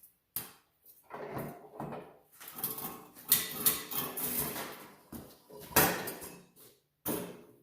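Irregular metallic clanking and knocking as a garden tiller is handled, with two sharper knocks standing out, one a third of the way in and another near the end.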